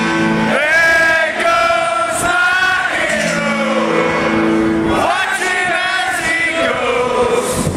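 Live rock song heard from within a large stadium audience: sung melody with long held notes over guitar, with the crowd's voices joining in.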